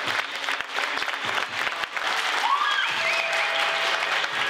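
Audience in a hall applauding, many hands clapping at once, with a short rising cheer from someone in the crowd about two and a half seconds in.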